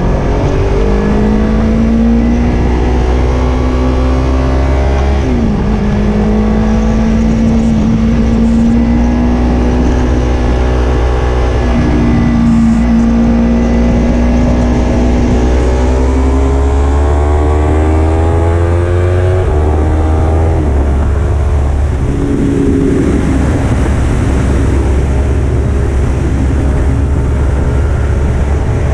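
Yamaha R3's 321 cc parallel-twin engine under hard acceleration at track speed. Its pitch climbs steadily through each gear and drops sharply at each upshift, several times over. A strong low rumble of wind noise runs underneath.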